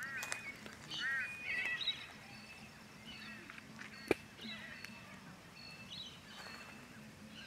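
Birds calling in open woodland: a few short, arching calls in the first two seconds, then scattered fainter calls. A single sharp click about four seconds in.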